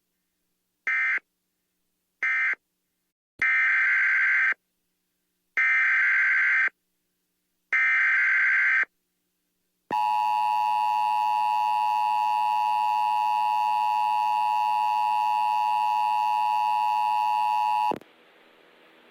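Emergency Alert System tones. Two short bursts of the end-of-message data code come first, then three longer, louder bursts of the next alert's SAME header. After them the two-tone attention signal holds steady for about eight seconds and cuts off sharply near the end.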